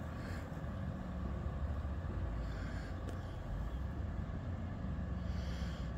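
Street traffic: a steady low rumble with an engine hum that fades in and out.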